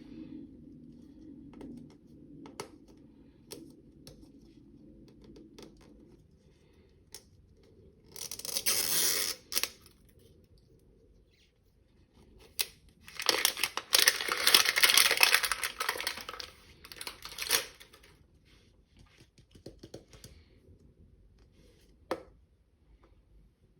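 Toy packaging being torn open and crinkled by hand, in two spells of tearing, one about eight seconds in and a longer one about thirteen seconds in, with scattered small clicks and taps between.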